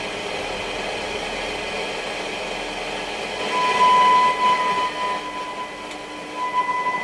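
Hacker Hunter RP38A FM radio's loudspeaker hissing with off-station noise. About three and a half seconds in, the signal generator's steady test tone comes through, briefly loud and then wavering, as FM tuner coil L3 is turned to pull the 90 MHz signal onto the dial mark.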